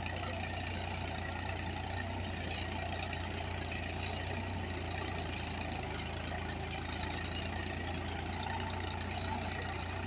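Indofarm 3048DI tractor's diesel engine running steadily under load as it pulls a nine-tine cultivator through the soil.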